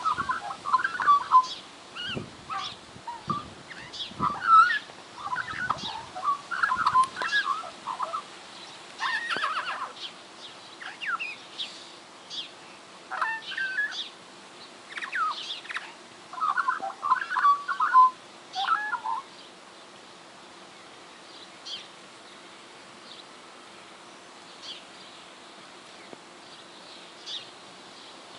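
A magpie singing a varied run of warbling, chattering notes in quick clusters, busy for the first two thirds and then only a few scattered calls near the end.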